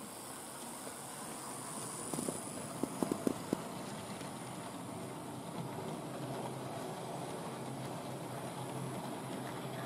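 Small OO-gauge model tank locomotive running along the track with a steady motor and wheel hum, with a short cluster of sharp clicks about two to three and a half seconds in as its wheels run over the track.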